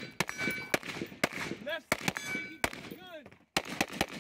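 AR-15 carbine fired in an uneven string of about ten shots, the last four in quick succession. Twice a hit steel target rings on with a steady high tone.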